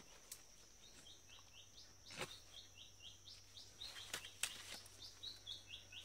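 Faint jungle ambience: a steady high insect drone under a bird calling in quick runs of short chirps, about four or five a second. A few sharp clicks and knocks from a hand working in the mud and stones of a streambed hole cut through.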